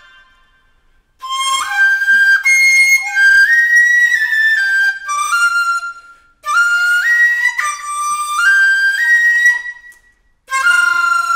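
Dizi (Chinese bamboo flute) playing an unaccompanied melody. After about a second of quiet it plays quick phrases of notes stepping up and down, breaks off briefly twice, and near the end holds one long note.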